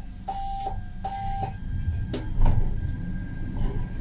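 Tram's electronic warning beeps as the doors close: short, evenly spaced tones, two of them in the first second and a half. Then a sharp click, over the low rumble of the tram as it starts to move off.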